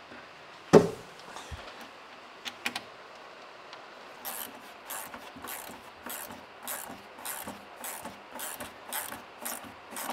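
A sharp knock about a second in, then a ratchet tightening nylon lock nuts onto 6 mm bolts: a regular run of short ratcheting strokes, about two a second, starting about four seconds in.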